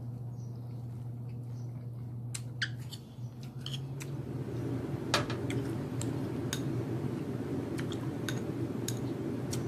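Metal spoon and fork clicking and scraping against a ceramic plate and bowl while eating, in scattered sharp clinks, the loudest about five seconds in. A steady low hum runs underneath and grows louder from about four seconds in.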